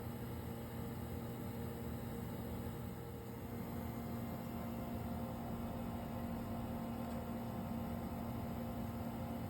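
Steady machinery hum with a constant low drone and an even hiss, holding level throughout.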